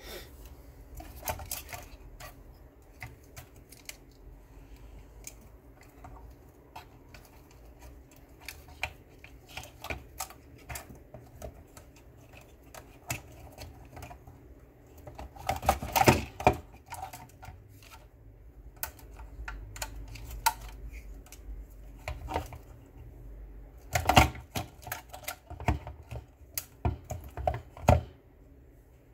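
Hands handling parts inside an opened plastic speaker housing while working the battery pack free: irregular clicks, taps and small rattles of plastic and wiring, with louder bursts about halfway through and again near the end.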